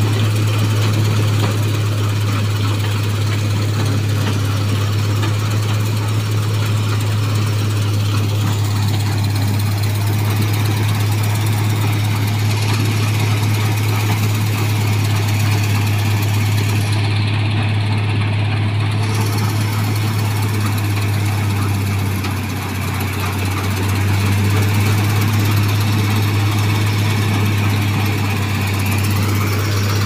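New Holland 3790 combine harvester running while cutting wheat: a loud, steady engine and machinery drone with a strong low hum, dipping briefly about two-thirds of the way through.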